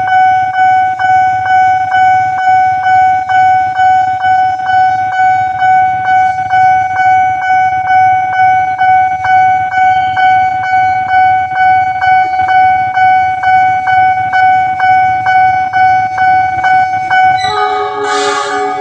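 Railway level-crossing warning alarm sounding its warning of an approaching train: a loud steady electronic tone pulsing about two and a half times a second. Near the end a different, louder sound with several pitches at once cuts in.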